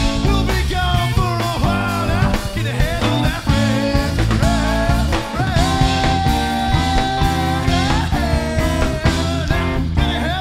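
Live funk-rock band playing: electric guitar, bass guitar and drums under a bending lead melody that holds one long note about six seconds in.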